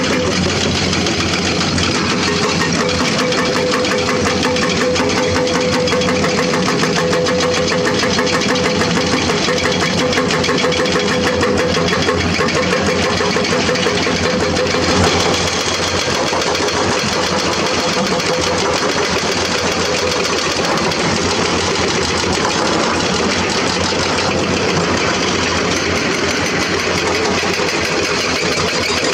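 Diesel engines of hydraulic crawler excavators running steadily while they dig rock. The sound changes about fifteen seconds in.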